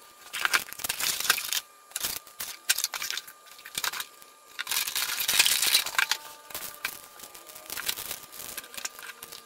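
Unboxing noises: irregular crinkling and rustling of plastic packaging bags and cardboard, with small clicks and knocks as parts are handled and set down on a table. The rustling is loudest about five to six seconds in.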